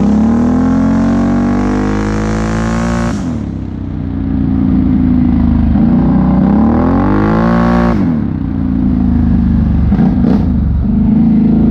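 Can-Am Outlander XMR 1000 ATV's V-twin engine with a Big Gun exhaust, accelerating with its pitch climbing, then lifting off suddenly about three seconds in. It climbs a second time, drops off again about eight seconds in, and runs on at a steady throttle.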